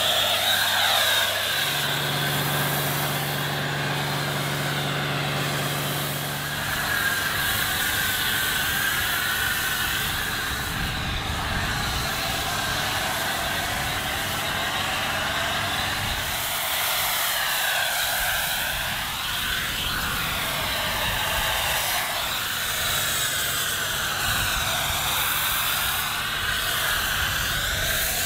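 Pressure washer with a foam cannon spraying snow foam onto a car: a steady hiss of spray whose tone shifts and sweeps as the nozzle moves across the body, with a steady low hum underneath.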